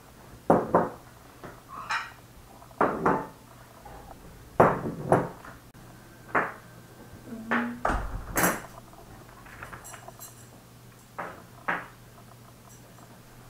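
China plates and metal forks being set down one by one on a plastic-covered table: a series of separate clatters and clinks, with a bright ringing clink about eight seconds in.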